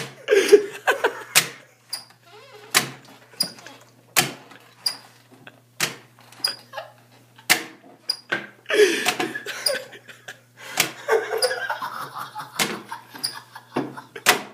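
A paper hole punch clacking down sharply again and again, irregularly, about once every second, with bursts of laughter in between.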